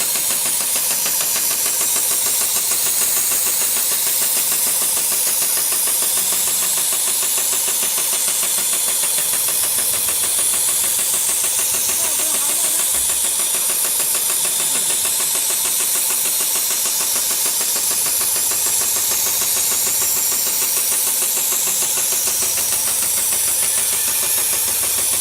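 Automated programmable sewing machine running continuously, stitching climbing rope: a fast, steady mechanical chatter of rapid needle strokes with a bright, hissy top.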